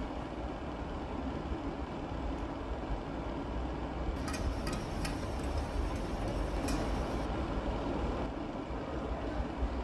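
Steady low rumble of background noise, with a few sharp clicks in quick succession a little before halfway and one more shortly after.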